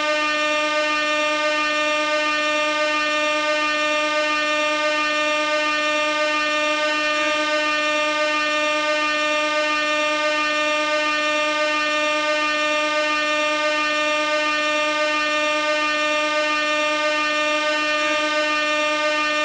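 Gas-canister air horn blaring continuously, one steady, loud, unbroken tone rich in overtones.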